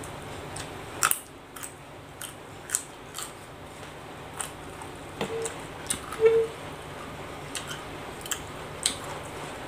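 Close-up crunching and chewing of raw, crisp vegetables, with sharp, irregular crunches every half second to a second.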